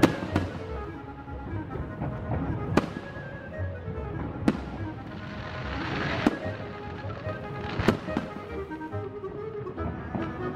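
Aerial firework shells bursting in the sky: about seven sharp bangs, roughly one every one to two seconds, the loudest right at the start, with a stretch of hissing crackle near the middle. Music plays underneath throughout.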